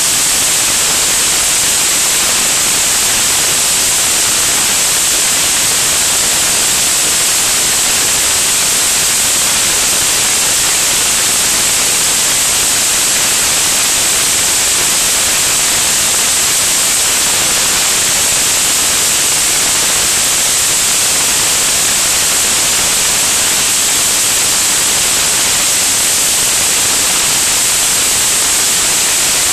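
Steady, loud, unchanging hiss of rushing air on a camera mounted under the wing of a small plane in flight, with no engine note standing out.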